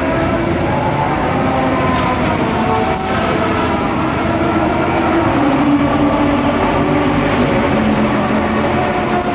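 Steady engine noise of race cars on the circuit, several engine pitches overlapping and slowly rising and falling without a break.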